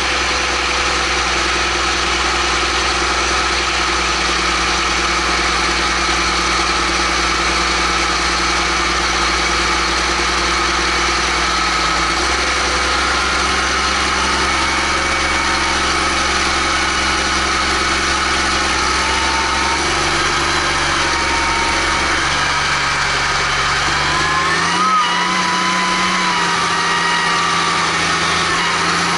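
Case IH Magnum 310 tractor's six-cylinder diesel engine running steadily under way, heard close to its exhaust stack. Its note rises and settles at a higher pitch about three quarters of the way through.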